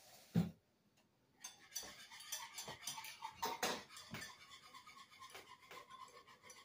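Dishes and metal utensils clinking and clattering as food is worked at the kitchen counter, with one louder knock about half a second in.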